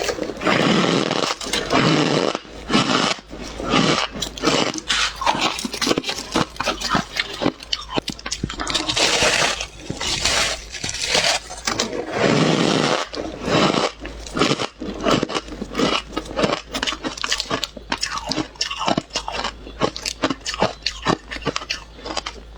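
Squeaky ice being bitten and chewed close to the microphone: dense rapid crunching and crackling, with several louder bites that break off larger chunks.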